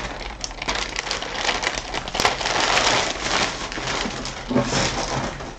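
Clear plastic sheet crinkling and rustling as it is handled and moved, a dense run of crackles that is loudest through the middle.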